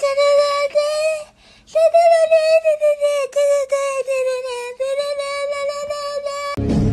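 A high voice-like tone, sung or synthetic, held nearly on one pitch with small dips. It breaks off briefly about a second and a half in and stops near the end.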